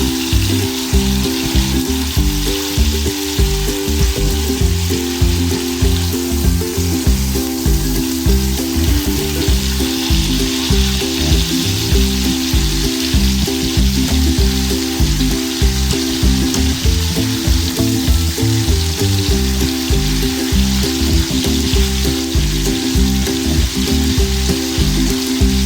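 Ribeye steak sizzling steadily in a frying pan, with background music carrying a steady beat and bass notes underneath.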